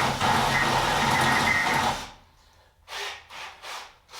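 Cordless drill boring a bolt hole through a steel car frame rail, running steadily under load for about two seconds and then stopping. The drill is on its last bar of battery.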